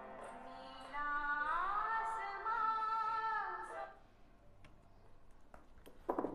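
Background music with a woman singing: one note slides up about a second in and is held until it fades out a little before four seconds.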